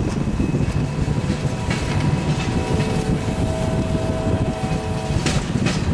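Norfolk Southern diesel freight locomotives rumbling on approach. About two seconds in, a locomotive air horn sounds one steady chord for about three and a half seconds, then cuts off.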